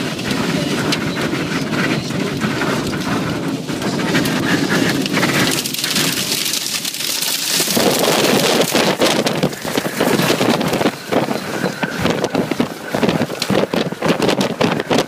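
Heavy rain and wind striking a vehicle, heard from inside the cabin. From about eight seconds in, a dense rattle of sharp hits on the body and windows.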